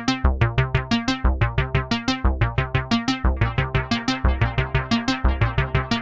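Cherry Audio Elka-X software synthesizer, an emulation of the ELKA Synthex, playing its 'Reso AR' resonant arpeggio preset: a fast, even run of short plucked notes, about seven a second, over a repeating bass line.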